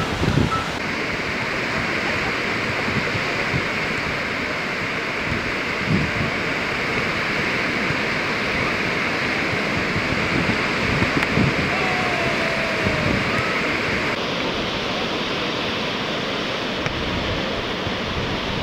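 Steady rushing roar of ocean surf with wind on the microphone. Its tone changes abruptly about a second in and again later.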